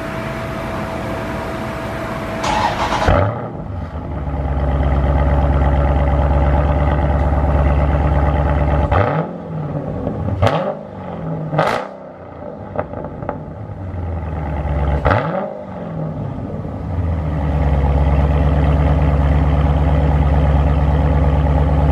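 Dodge Challenger Scat Pack's 392 Hemi V8, its mid mufflers deleted, starting up about two and a half seconds in with a sudden loud burst after a steady hum. It then runs at a loud, steady idle out of the open exhaust. Around the middle there are about three quick throttle blips, and then it settles back to a steady idle.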